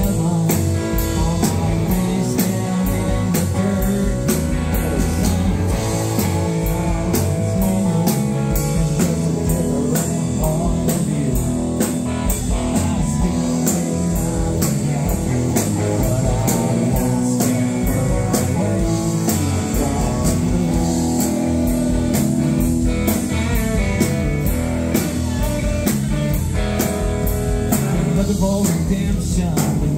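A live rock band playing an instrumental passage: electric and acoustic guitars, bass guitar and drum kit, with a steady cymbal beat.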